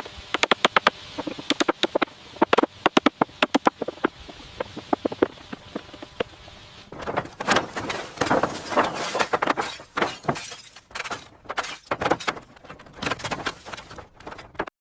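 Building work: a quick, irregular run of sharp knocks for the first few seconds, then from about seven seconds in a series of longer, rougher noisy strokes.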